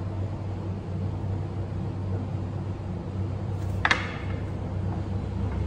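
A steady low hum, with one short, bright clink just before four seconds in.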